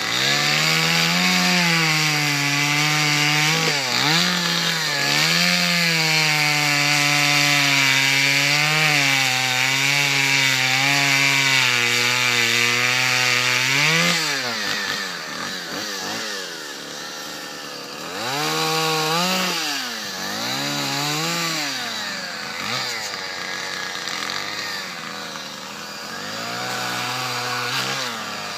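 Chainsaw running at high revs under load for about the first half, cutting into dead ash wood. It then drops off the cut and revs up and down several times at a lower level.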